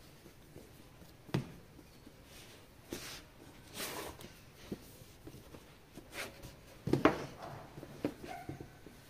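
Unboxing handling of an action-figure box and its plastic parts: scattered light knocks and clicks with brief rustles. The sharpest knocks come about a second and a half in and about seven seconds in.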